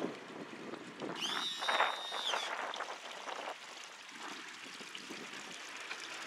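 Water lapping and trickling, with a single high squeal lasting about a second that begins about a second in.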